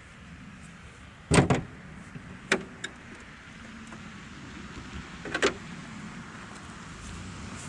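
A few sharp knocks and clunks, as from handling parts of a vehicle. The loudest is a heavy double clunk about a second and a half in, and another comes about five seconds in.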